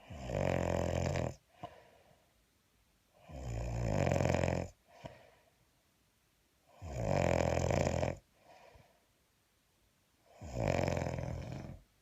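A man snoring loudly in his sleep: four long, fluttering snores about three and a half seconds apart, with a softer breath between them. The uploader likens the sound to a hummingbird.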